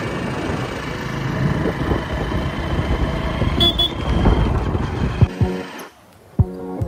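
Motorcycle running on a country road, with wind buffeting the microphone. About six seconds in this cuts to background music with a steady beat.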